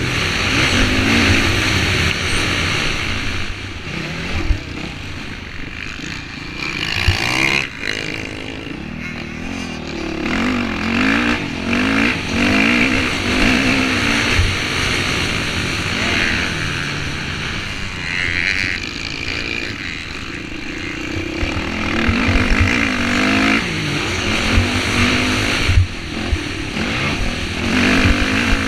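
Motocross dirt bike engine being ridden hard, its revs climbing and dropping again and again through the gears, under a steady wash of wind noise. A few sharp knocks stand out along the way.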